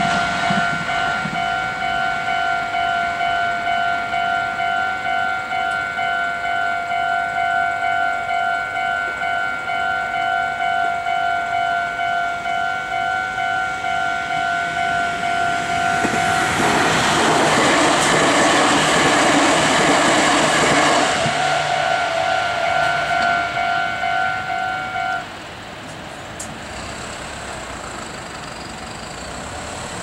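Level-crossing warning bell ringing in steady repeated electronic pulses, about two a second. About sixteen seconds in, a Meitetsu 5300-series electric train runs over the crossing for around five seconds with loud wheel and motor noise. The bell stops about twenty-five seconds in, leaving a waiting truck's engine idling.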